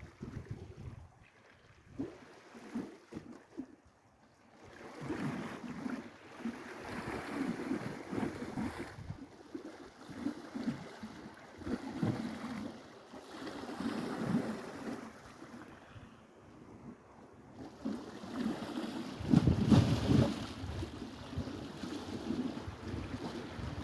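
Sea waves washing in and drawing back on the shore, swelling and fading every few seconds, with wind buffeting the microphone, loudest near the end.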